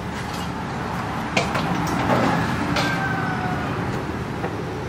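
Hand-forged kitchen knife slicing raw beef on a round wooden chopping block, the blade tapping the board a few times, over a steady background rumble.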